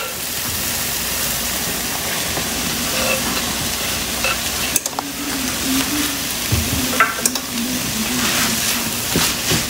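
Spiced onion-tomato masala sizzling in a nonstick frying pan as chopped spinach is added and stirred in with a plastic spatula, which scrapes and knocks against the pan a few times in the second half.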